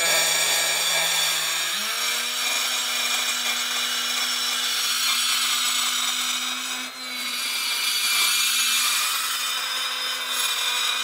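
Milwaukee cordless die grinder with a carbide burr grinding the intake port edge of a cast-iron 13B rotary side housing. The motor pitch steps up about two seconds in and stays steady under a dense grinding hiss, easing off briefly near the middle.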